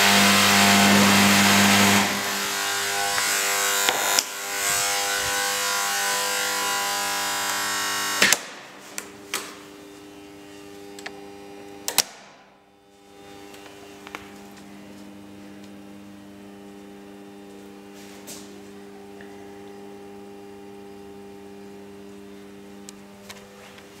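Electrical mains hum and buzz from a home-built control panel with contactors and a ballast: a loud harsh buzz for about eight seconds, cut off by a sharp click, then a few more clicks and a quieter steady hum that carries on.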